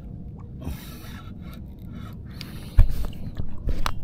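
Scraping and handling noise from a spinning rod and reel being cranked, over a steady low rumble. About three seconds in comes a loud thump and then a few sharp knocks as a hand bumps the camera.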